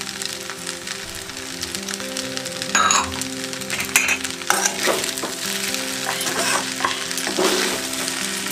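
Masala pasta with vegetables sizzling in a pan on a gas burner. From about three seconds in, a steel spatula stirs the pasta and scrapes the pan several times.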